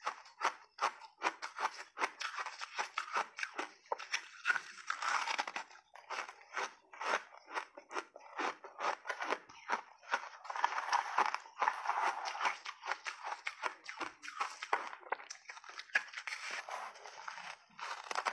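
Crunching and chewing of big bites of hard refrozen crushed ice, close to the microphone: a dense run of sharp crunches, several a second, as the ice cracks between the teeth.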